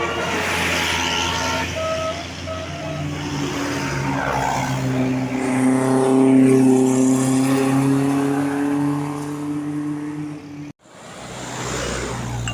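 Tour bus with a multi-tone 'telolet' (Basuri) musical horn sounding over its engine: short notes at changing pitches, then one long held tone. The sound cuts off abruptly near the end and then starts again.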